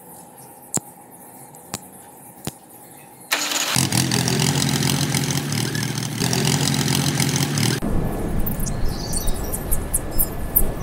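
A few sharp clicks, then about three seconds in a tractor engine sound starts and runs with a steady low throb. Near the end it turns rougher and noisier, as if pulling away. The engine sound is dubbed onto a toy tractor.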